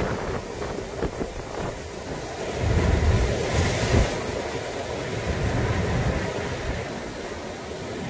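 Sea surf breaking and foaming over rocks, with a big wave crashing about halfway through. Strong wind buffets the microphone, adding a low rumble.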